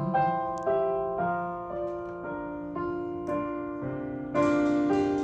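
Solo piano notes and chords from a recorded ballad's instrumental fill, played back through hi-fi loudspeakers. New notes come in about every second, each ringing and fading.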